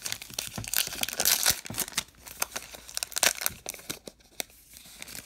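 Sealed trading-card pack wrapper being torn open and crinkled by hand: a dense run of sharp crackles, loudest in the first three seconds or so, thinning out after about four seconds.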